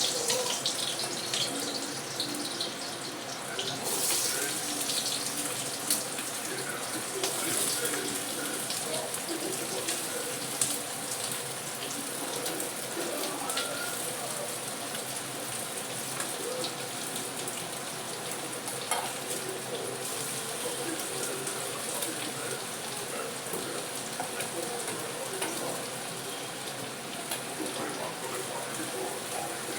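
Thinly sliced onions sizzling in hot mustard oil in a kadai, a steady hiss with a few sharp clicks.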